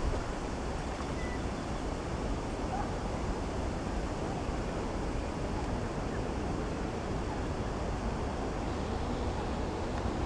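Steady wind noise on the camcorder microphone: an even, low rushing.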